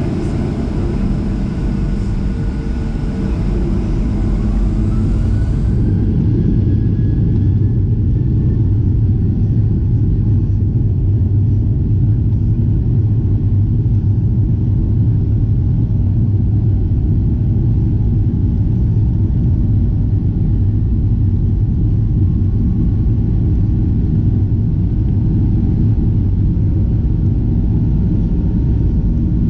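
Boeing 737-700 jet engine and cabin noise: a loud, steady low rumble, with a thin engine whine rising in pitch over the first several seconds.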